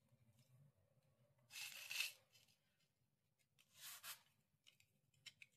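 Utility knife drawn along a metal ruler, cutting through a 3D brick wallpaper sheet: two short scraping strokes about two seconds apart.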